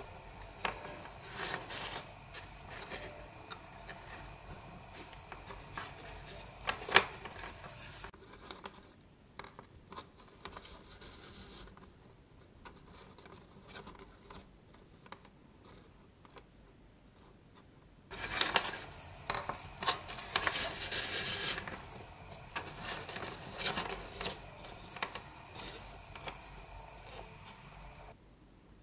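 Cardboard toilet-roll loops and thin string being handled on a cutting mat: irregular rubbing and scraping with small taps as the string is wound and tied around the loops. One sharper tap about a quarter of the way in.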